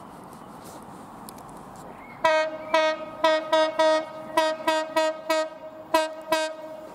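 Horn of an approaching train sounding a rapid string of about eleven short toots, starting about two seconds in.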